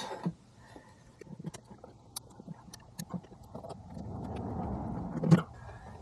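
Small plastic clicks and rustling as wire connectors and their leads are handled and unplugged at a Chinese diesel heater's controller board, with a longer rustling scrape building over the last couple of seconds and ending in a sharp click.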